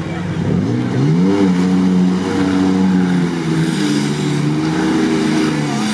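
Off-road 4x4 SUV engine revving under full throttle as the vehicle claws its way out of a deep mud pit. The revs climb about half a second in, hold high and steady, and ease off near the end.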